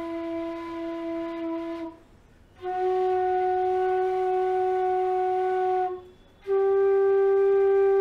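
Bass bamboo bansuri flute in G (25 inch) playing three long, steady held notes in its low register, rising by step: E, then F-sharp, then G. The first note stops about two seconds in, the second runs through the middle, and the third starts just past six seconds in.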